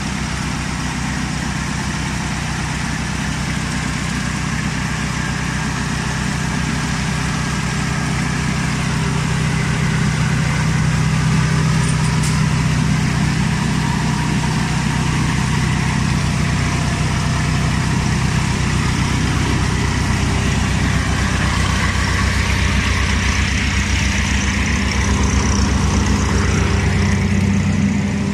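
Engine of an SP-10 blueberry harvester running steadily while its spoked shaker drum works through the bushes, with a noisy mechanical rattle over the low engine note.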